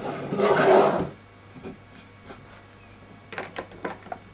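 Workshop handling noises at a router table: a brief rubbing scrape in the first second, like a wooden board pushed across the table top. Then a short cluster of light clicks and knocks near the end as parts and tools are handled.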